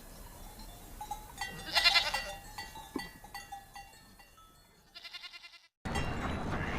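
Animal calls, a few with several pitches, loudest about two seconds in, and then a short quavering call. Near the end they cut off abruptly into a steady noise.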